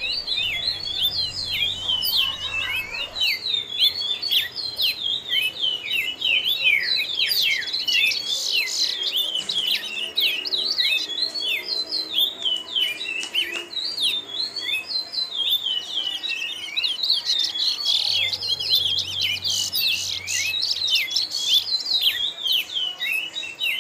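A group of small birds chirping continuously: a dense chorus of quick, high, overlapping chirps and short pitch sweeps.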